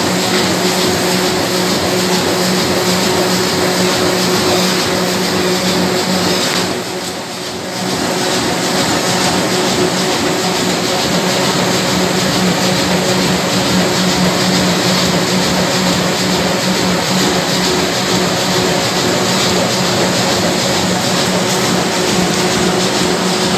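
HRB flexo printer slotter die cutter for corrugated carton boxes running: a loud, steady machine drone with a constant hum, briefly quieter about seven seconds in.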